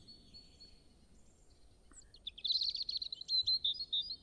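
Nature-ambience sound effect: a faint hiss with a thin high chirping, then a quick run of high bird-like chirps and twitters over the second half.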